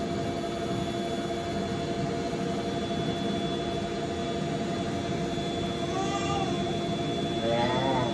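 Built-in electric blower of an inflatable bounce house running steadily with a constant hum, filling the vinyl with air.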